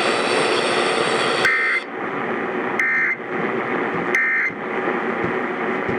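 Emergency Alert System end-of-message code: three short, identical bursts of two-tone digital data, a little over a second apart, over steady radio static. They mark the end of the alert message.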